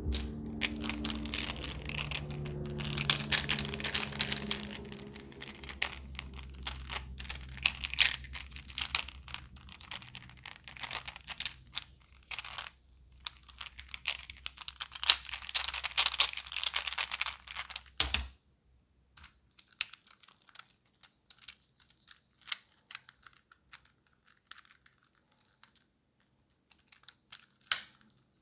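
Silicone pop-it fidget toy bubbles pressed in quick succession: a rapid run of small pops and clicks. About 18 seconds in the clicking breaks off abruptly, then goes on sparser and quieter.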